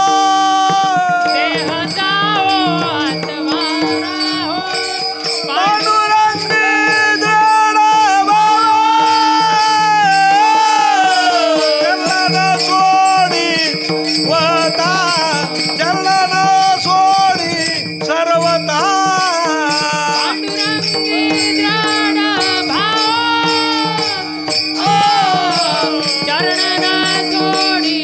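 Devotional kirtan music: a singer holds long, bending melodic phrases over a steady sustained drone, while small hand cymbals jingle rapidly throughout.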